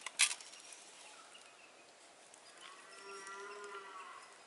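A single sharp tap near the start, a knife striking the steel pan while the raw chicken is scored. Then, about two and a half seconds in, one drawn-out call of a farm animal lasting about a second and a half.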